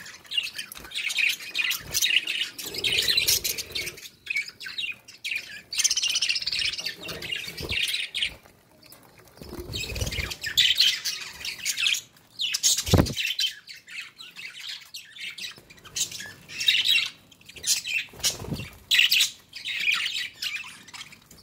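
A flock of budgerigars chirping and chattering almost without pause, quick high-pitched warbles and squawks. Now and then a bird splashes and flutters in a shallow water dish, and there is one sharp knock a little past the middle.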